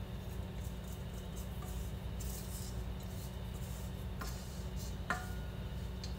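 A spatula scraping chocolate cake batter out of a stainless steel stand-mixer bowl, with two light knocks against the metal bowl about four and five seconds in; the second knock is the loudest and rings briefly. A low steady hum runs underneath.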